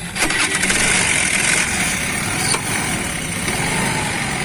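Honda Activa scooter's single-cylinder four-stroke engine starting with a few quick clicks just after the beginning, then idling steadily. There is no noise from the kick-start side, which has been cured by welding up the kick shaft.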